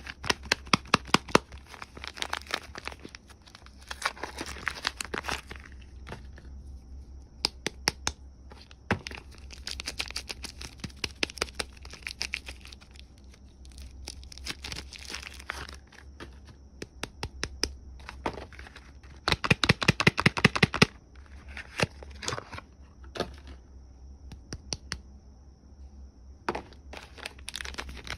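Soap packaging being unwrapped by hand: the wrapper crinkles and tears in bursts of quick, sharp crackles with short pauses between, the loudest burst about two-thirds of the way through.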